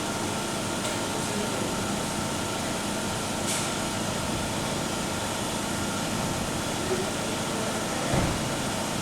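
GM Cruze idling slightly fast with the engine running steadily, with ticking and popping from the fuel tank as it is sucked into vacuum through a canister purge valve stuck open. A low thump comes near the end.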